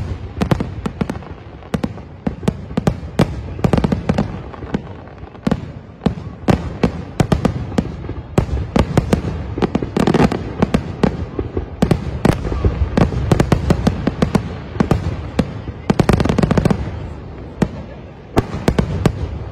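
A fireworks finale barrage: rapid, irregular bangs and cracks of shells bursting, several a second, over a continuous rumble, with the densest volleys about halfway through and again about four seconds from the end, thinning out near the end.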